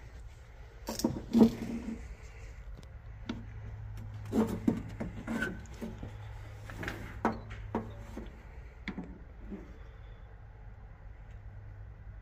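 Scattered knocks and clicks of handling and footsteps as the motor's 220-volt plug is pushed into its outlet, the loudest about a second and a half in. A steady low hum runs through the middle of it.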